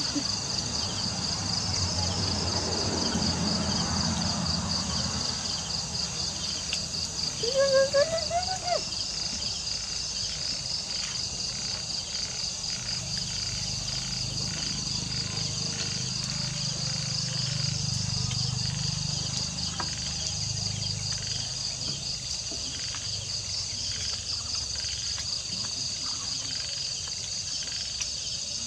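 Night insects chirring in a steady, high, finely pulsing drone. About eight seconds in, a brief voice-like sound briefly rises and falls in pitch.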